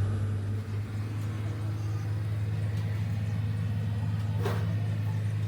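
An engine running at a steady speed, a constant low hum. A short sharp sound cuts in about four and a half seconds in.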